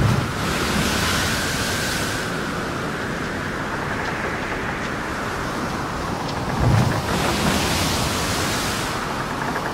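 Steady rushing noise, like a sound-effect bed of wind or surf. A low thud comes at the start and another about two-thirds of the way through, and each is followed by a swell of hiss that lasts about two seconds.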